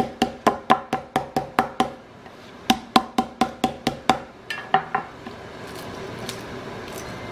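Chef's knife chopping through lemongrass stalks onto a bamboo cutting board: quick, sharp knocks about four a second, in two runs with a short break, trailing off about five seconds in.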